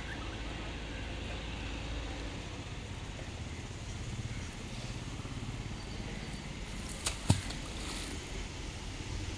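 A nylon cast net being drawn through the water at a canal's stone edge, over a steady low rumble. A sharp knock comes about seven seconds in, with a smaller one just before it.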